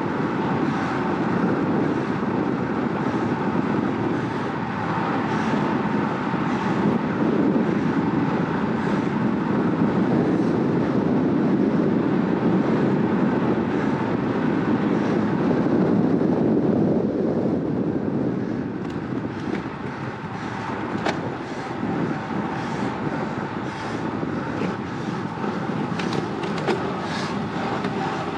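Wind rushing over the microphone of a road bike riding at about 47 km/h, mixed with tyre noise on asphalt. The rush eases about two-thirds of the way through as the road climbs and the speed drops to about 33 km/h, and a few sharp clicks come near the end.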